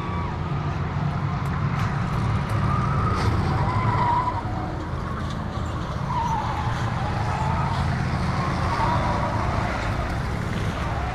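A pack of figure-8 train race cars running hard together, their engines a steady low drone, with a wavering high whine rising and falling over it as the cars skid through the turns.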